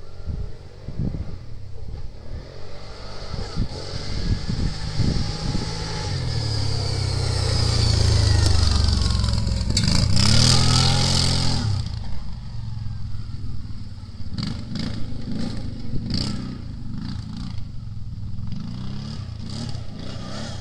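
CF Moto Gladiator X8 ATV engine revving as the quad is driven hard along a dirt track and passes close by. It grows louder to a peak about ten seconds in, drops in pitch as it goes past, then carries on more faintly as it moves away.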